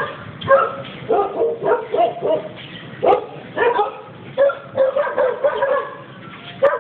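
A dog barking repeatedly in short barks, about two or three a second.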